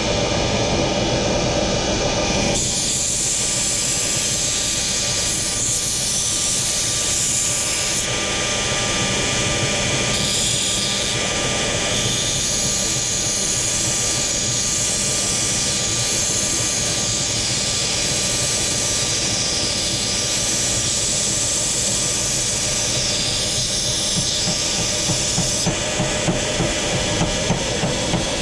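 Steady, loud hissing noise. About 25 seconds in, regular hammer blows on metal begin, about two or three a second.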